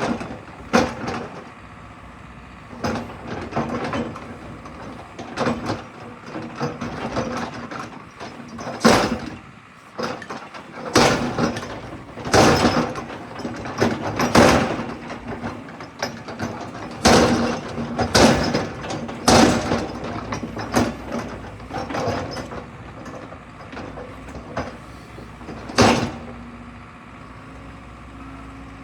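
JCB 220X LC crawler excavator's diesel engine and hydraulics running under load, a steady hum whose pitch rises slightly near the end. Over it come repeated sharp clanks and knocks, one every second or two, as the machine works.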